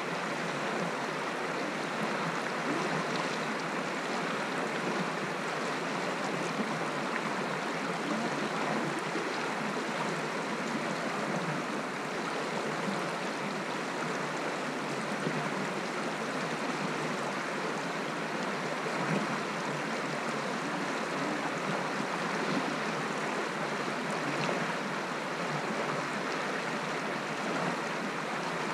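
Shallow, stony mountain stream flowing over rocks close by: a steady rush of running water.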